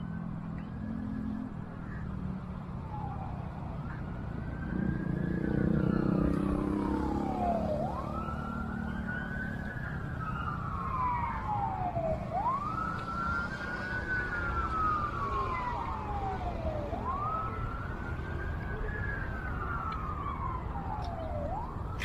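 An emergency vehicle's siren wailing: each cycle rises quickly and then falls slowly, repeating about every four and a half seconds. It sits over a steady low background rumble that swells briefly about five seconds in.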